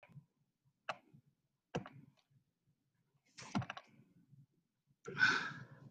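Sharp clicks and taps from a laptop being worked, a single click about a second in and another soon after, then a quick cluster of taps. Near the end comes a louder, brief rustling noise.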